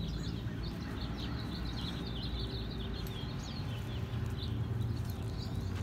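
Small birds chirping, a dense run of short, high chirps one after another, over a steady low rumble.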